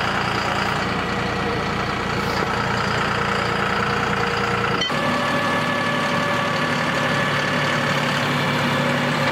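John Deere utility tractor's diesel engine running steadily while the tractor drives and works its front loader, with an abrupt change in tone about five seconds in.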